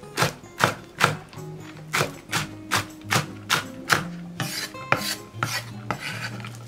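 Chef's knife slicing a large green onion on a wooden cutting board, about two to three crisp chops a second. From about four and a half seconds in, the blade scrapes across the board as the sliced rings are swept together.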